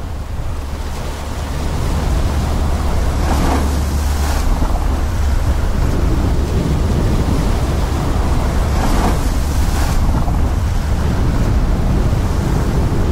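Surf breaking on a shingle beach, a steady wash of waves with two louder surges about three and nine seconds in. Heavy wind rumble on the microphone underneath.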